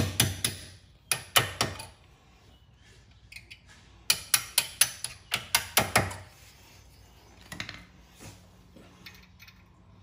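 Stubby hammer tapping a pin punch to drive the pad-retaining pin out of a rear Brembo brake caliper: sharp metallic taps with a short ring. There are two quick groups of three in the first two seconds, then a faster run of about nine taps, roughly four a second, between four and six seconds in.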